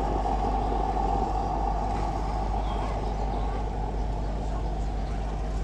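A vehicle running steadily: an even, engine-like drone over a constant low hum.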